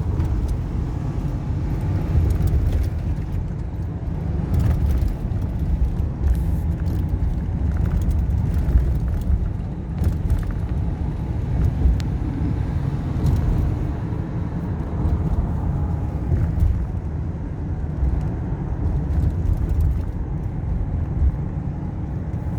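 Steady low rumble of a 2014 Ford Econoline E-250 van driving along a road, heard from inside the cabin: engine and road noise, with a few light knocks scattered through.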